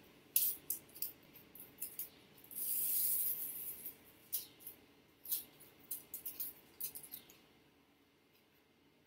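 Scotch tape being peeled off the edges of a painting: a run of short crackling rips, with one longer, steady peel from about two and a half seconds in, and the rips die away about a second and a half before the end.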